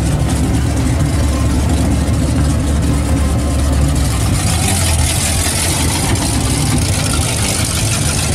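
Classic Chevrolet Chevelle's engine running at low speed as the car creeps past, a steady low exhaust note.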